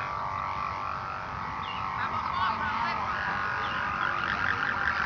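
Sawangan kite hummers on flying kites droning together, several steady tones sounding at once, with a slight waver.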